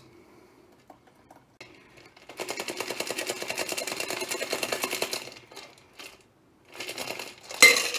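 A metal cocktail shaker held over a glass and jiggled while the drink is strained out: a rapid metallic rattle that starts about two seconds in and lasts about three seconds, then a few lighter clinks and a sharp metal clank near the end.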